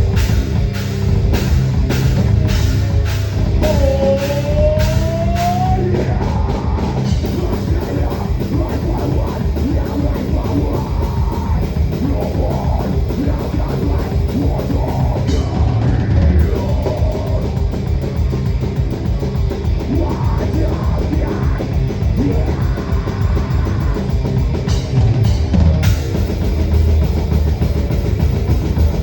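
Heavy metal song played live by a band, taken raw from a drum-cam microphone, with the drum kit loud and up front throughout.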